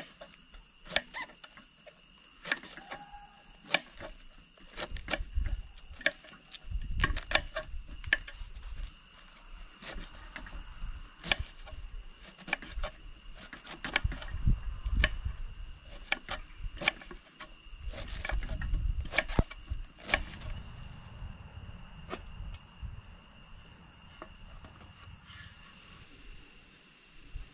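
Knife shredding a head of cabbage: a run of irregular crisp cuts and knocks, with a steady high-pitched whine behind them that drops out about two-thirds of the way through.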